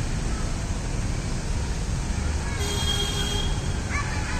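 Steady low rumble of outdoor traffic noise, with a high-pitched squeal lasting under a second about two and a half seconds in.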